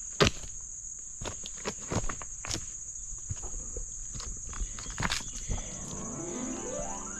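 Steady high-pitched insect drone, with twigs and leaves snapping and crackling under footsteps through brush, the sharpest snap just after the start. Near the end a cow begins to moo, the call rising in pitch.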